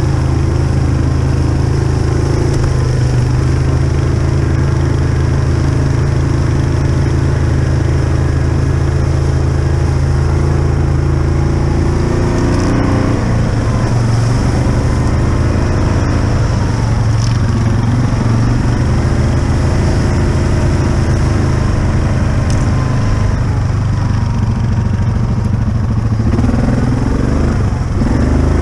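Yamaha Kodiak ATV's single-cylinder four-stroke engine running under load on a muddy trail. Its note is steady at first, then wavers with the throttle from about halfway, rising and falling near the end.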